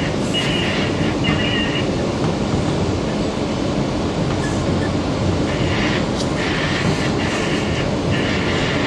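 R160B Siemens subway car running along the track, a steady rumble of wheels on rail, with a high squeal near the start and again in short repeated pulses from about halfway through.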